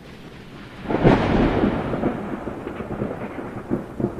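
Thunder with rain: a steady hiss of rain, then a loud clap about a second in that rolls on and slowly dies away.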